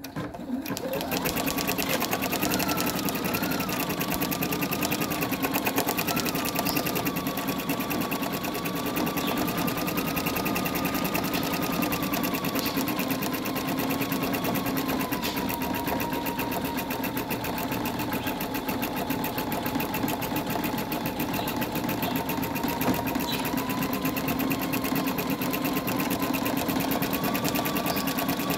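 Home embroidery machine stitching lettering into a terry-cloth face washer. A fast, even needle chatter with a motor whine that wavers in pitch as it works. It starts up at the beginning, then runs steadily without a pause.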